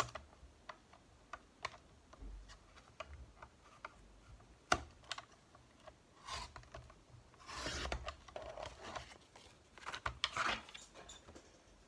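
Paper being handled and cut on a paper trimmer: scattered light clicks and taps as the sheet and cutter are positioned, and a few short swishes as the sliding blade cuts through patterned paper.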